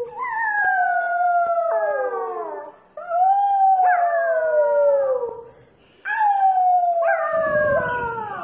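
A puppy howling: three long howls, each sliding down in pitch, with short breaks between them.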